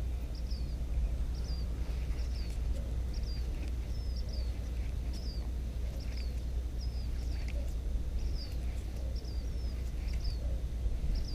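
A small bird calling over and over, short high chirps repeating a little more than once a second, over a steady low rumble.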